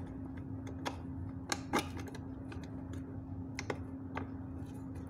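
Scattered light clicks and taps as wires and a small driver board are handled and pushed into the grey plastic housing of an outdoor LED lamp, over a steady low hum.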